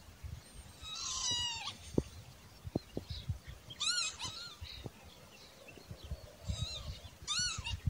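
Northern lapwing calling: four separate slurred calls, each rising and falling in pitch, the first sliding down and the third faint. Faint low knocks fall between the calls.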